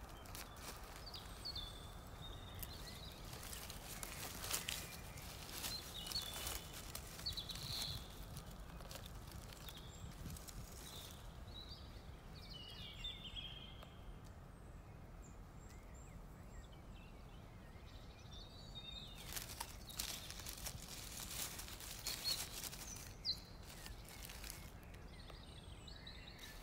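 Rustling and crackling of dry leaf litter and twigs, with a denser spell of rustling about three quarters of the way through, over a faint outdoor background with a few short faint bird chirps.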